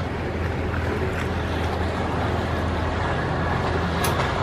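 Canal tour boat's engine running with a steady low hum, heard from inside the boat's glass-roofed cabin. A short click about four seconds in.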